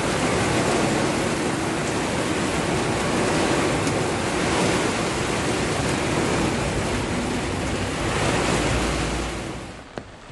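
Heavy tropical downpour, heard from inside a vehicle as a steady loud rush of rain. It drops away sharply about nine and a half seconds in.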